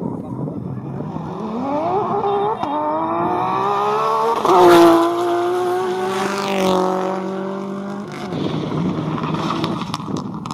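Porsche 911 rally car's flat-six accelerating hard, its pitch climbing through a gear change, then passing close at full throttle, loudest about five seconds in, where the pitch drops slightly as it goes by, and fading away.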